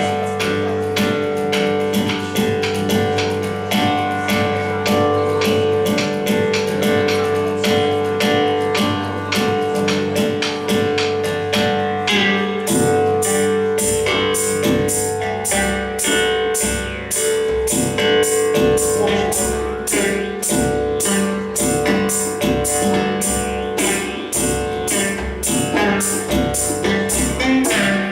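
Live band music: a guitar strummed quickly and evenly over held drone tones, with a low drum beat coming in about halfway through.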